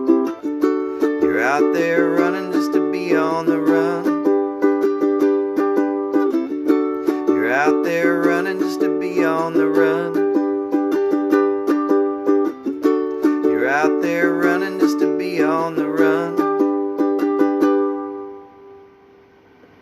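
Kamaka HF-2 concert ukulele strumming the instrumental ending of the song. The last chord rings out and fades away near the end.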